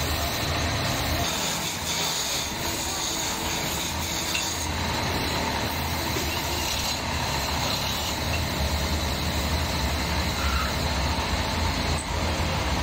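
Wood lathe running with a steady low hum while a turning tool cuts the spinning wood, with a hiss of cutting that is stronger for a few seconds near the start.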